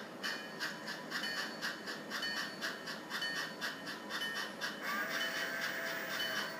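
Digital sound decoder in an HO-scale model steam locomotive playing slow, even steam chuffs of about three a second as the model creeps along. About five seconds in, a steady held tone sounds over the chuffing.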